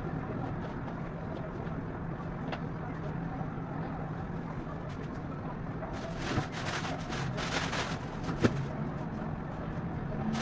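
Steady city background noise with a low traffic hum. A louder hissing stretch runs from about six to eight and a half seconds in, with a sharp click near its end.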